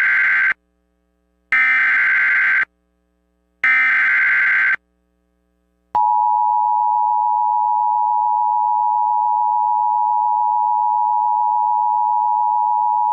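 Emergency Alert System tones. The end of one burst of the SAME header's buzzing data screech is followed by two more bursts of about a second each, spaced about a second apart. About six seconds in, the steady two-tone EAS attention signal begins and runs on.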